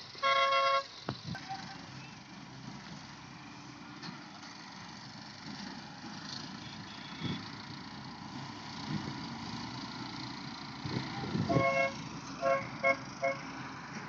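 A vehicle horn blares for about half a second at the start, then again about 11.5 s in, followed by three quick toots. Between the blasts, farm machinery engines run steadily in the background.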